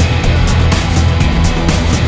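Loud background music with a heavy bass line and a steady beat, a bright tick about four times a second.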